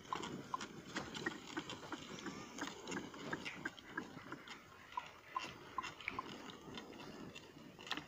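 Bullock and ploughman stepping over dry, stony soil as a wooden bullock-drawn plough scrapes through it: an irregular patter of short clicks and ticks over a low crunching rustle.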